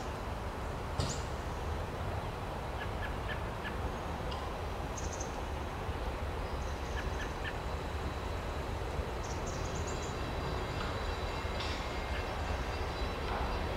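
Diesel-electric freight locomotive approaching slowly, its engine a steady low rumble that grows slightly louder. Birds chirp briefly at intervals.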